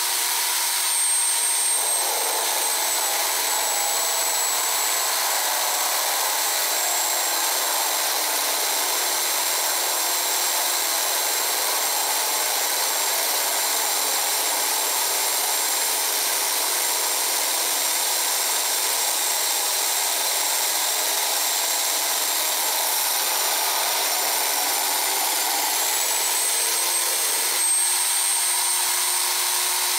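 Bench drill press running steadily as a hollow core bit grinds into a tape-wrapped glass bottle. Its high whine drops slightly in pitch a couple of seconds in and rises back near the end.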